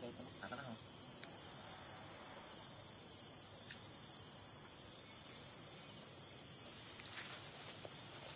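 Insects droning steadily at a single high pitch, with a few faint ticks near the end.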